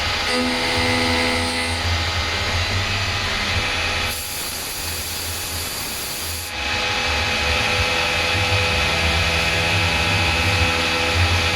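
CNC machine cutting a dart barrel: a steady motor whine over a low hum, with about two seconds of loud hissing partway through.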